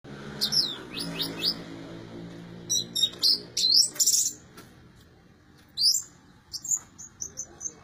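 Orange-headed thrush singing in its cage, back in song after its moult: a run of quick whistled sweeps and chirps, a harsh burst about four seconds in, and a string of short high notes near the end.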